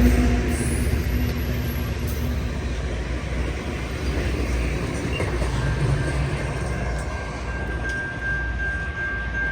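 LORAM rail grinder work train passing: a steady low rumble of the train moving along the track. A thin, steady high tone comes in near the end.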